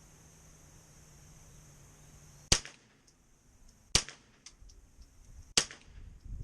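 Winchester Wildcat .22 LR semi-automatic rifle firing three shots, about a second and a half apart, each followed by faint smaller clicks.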